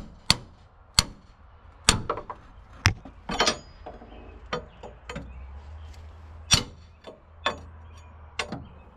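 Hammer blows on steel, about ten irregular strikes with a short metallic ring after each, knocking at a torque-rod bushing to free it.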